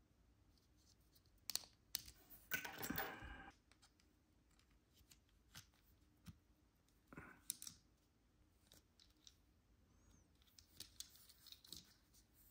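Small sharp clicks and short scrapes of a Lexus smart key fob's plastic case and metal key being handled, with a few seconds between them.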